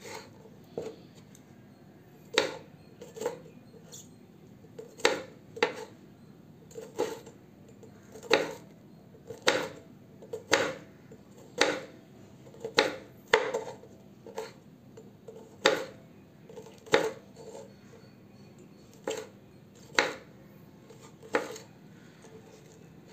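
Kitchen knife slicing through bitter gourds into rounds, each cut ending in a sharp knock of the blade on the wooden cutting board, about once a second in an uneven rhythm.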